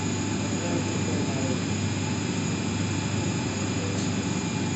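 Chiller plant room machinery running steadily: an even drone with a few faint steady tones above it.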